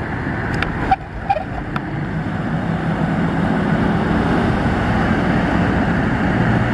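Engine running steadily over wind and surf noise, growing louder after about two seconds. A few sharp clicks come about a second in.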